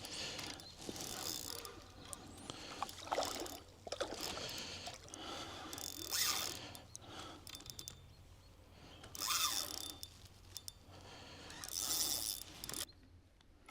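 Fishing reel being wound in uneven spells, its gears and ratchet clicking, as a hooked trout is played in.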